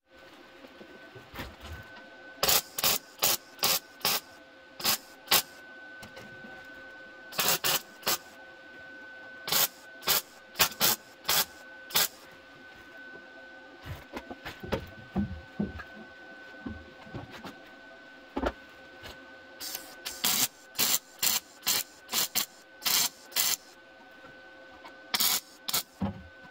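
A welder laying short spot welds on the steel rear inner wheel arch panel of a car body. Each burst lasts a fraction of a second, and they come in runs of several with pauses between runs, over a steady faint hum.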